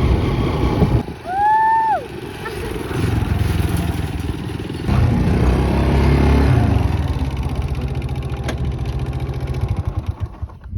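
Small motorbike engine running while riding, with wind noise. A short tone that rises then falls comes about a second and a half in, and the engine swells about three seconds in before easing off near the end.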